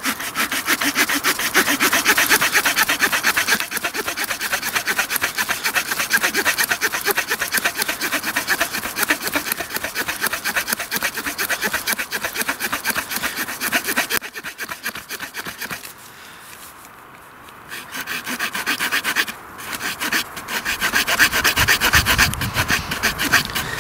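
Small saw blade of a Victorinox Swiss Army pocket knife cutting a wet branch in quick back-and-forth strokes. The strokes stop for a couple of seconds about two-thirds of the way through, then start again.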